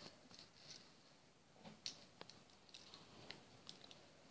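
Near silence with a few faint clicks of plastic Lego pieces being handled as a small Lego model is transformed.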